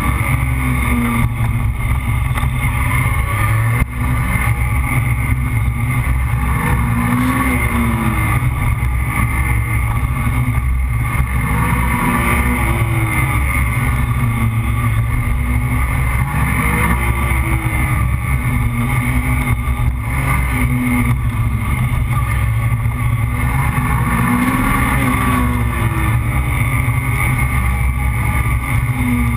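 Motorcycle engine running at speed, its revs rising and falling every few seconds through the bends, under a steady heavy rumble of wind and road noise on the camera.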